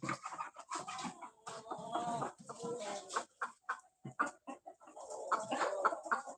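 Kadaknath chickens clucking, a run of short calls in quick, irregular succession.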